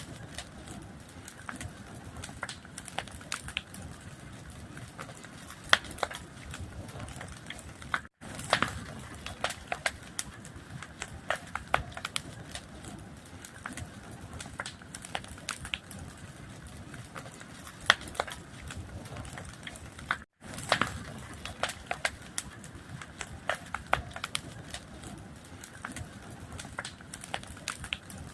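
A fire crackling steadily, with many sharp, irregular pops over a soft rushing noise. The sound cuts out for an instant twice, about 8 and 20 seconds in.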